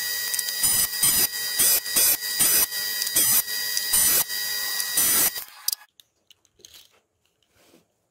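Benchtop jointer running with a steady high whine while a Douglas fir block is fed over the cutterhead, each pass a loud cutting surge, less than a second apart. The machine sound cuts off about five seconds in, leaving only faint handling sounds.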